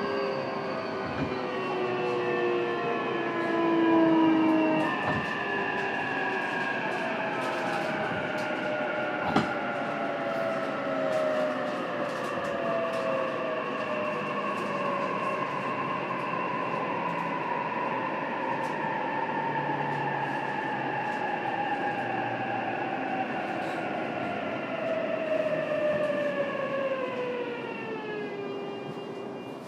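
JR East E233 series electric train heard from inside a motor car, its inverter and traction motors whining in several tones that fall steadily as the train brakes. Near the end the whine slides quickly down and levels off as the train comes to a stop. There is running noise underneath and a single knock about nine seconds in.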